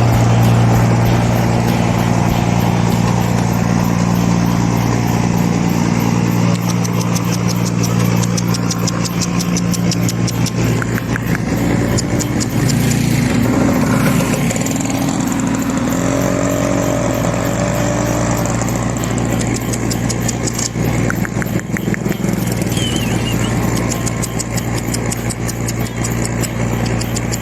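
An engine running steadily at a constant low pitch, with some light rattling and ticking over it.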